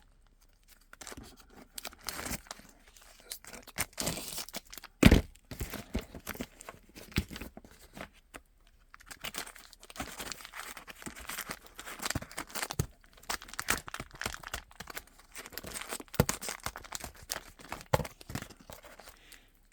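Chrome-plated steel folding ruler being handled and unfolded: irregular clicking of its hinged segments and crinkly rustling, with one louder knock about five seconds in.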